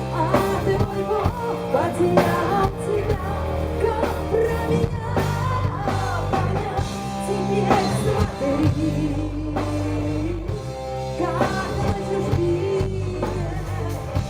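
Live folk-rock band playing: drums, bass and guitar, with a wavering lead melody line above them.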